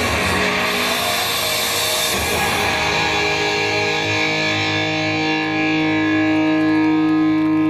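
Loud recorded dance music with distorted electric guitar playing over a PA. About three seconds in it settles into a long held closing chord that rings on.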